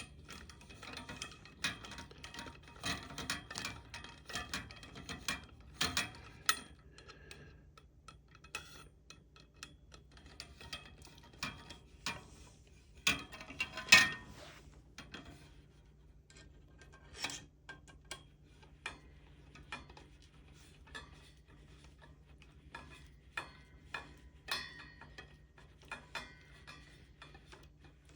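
Nuts and bolts being tightened on a planter frame: irregular small mechanical clicks and clinks, dense for the first several seconds and then sparser, with one louder knock about 14 seconds in.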